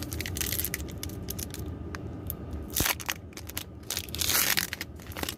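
Pokémon card packaging crinkling and crackling as it is handled and torn open, in irregular clicks and rustles with a louder burst of crinkling about four seconds in.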